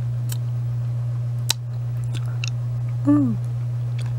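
Wet mouth clicks and smacks from sucking on a hard lollipop, scattered through, with a short falling 'mm'-like vocal sound about three seconds in, over a steady low hum.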